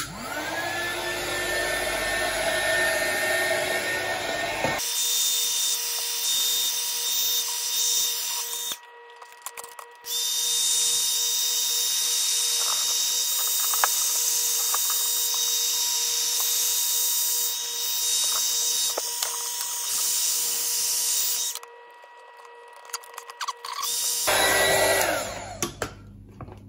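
Small hand-held heat gun running, its fan motor giving a steady whine while it shrinks heat-shrink tubing over a joint on 300-ohm ladder line. The whine rises as the motor spins up at the start, stops twice for a second or more, and spins up briefly again near the end.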